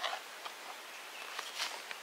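Kitchen knife slicing soft fruit on a cutting board: a soft cut right at the start and two more about a second and a half in.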